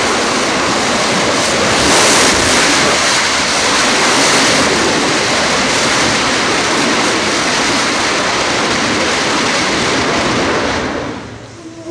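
HEAT-2X liquid-oxygen rocket engine firing on a test stand, a loud, steady rush of exhaust noise, as the engine fails and fire bursts out of the stand. The noise swells a couple of times early on and falls away about eleven seconds in.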